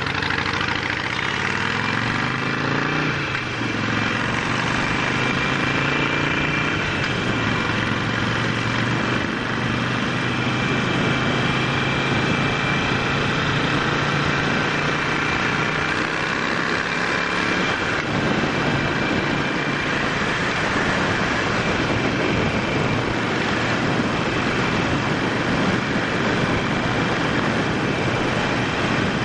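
Harley-Davidson Sportster 48's air-cooled V-twin pulling away from idle, its pitch climbing over the first few seconds, then running steadily at riding speed. Heavy wind rush over the helmet camera grows to drown the engine in the second half.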